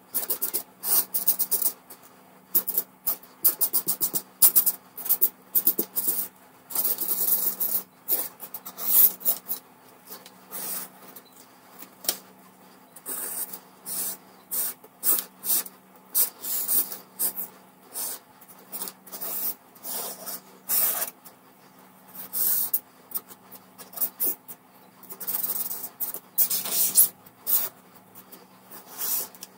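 Felt-tip marker scratching across paper in quick, irregular strokes, in short runs with brief pauses, as lines are sketched.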